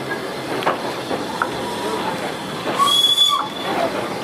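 Steam railway carriage running along the track, with a steady rumble, rattling and occasional clicks from the wheels. About three seconds in, a brief high-pitched squeal with a hiss rises over it for about half a second.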